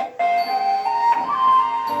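Khlui, the Thai bamboo flute, playing a slow melody of held notes that step up and down, with a lower sustained accompaniment underneath; the melody breaks off briefly just after the start.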